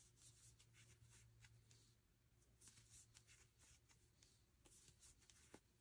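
Near silence, with faint scattered rustles and light ticks of a metal crochet hook being worked through yarn.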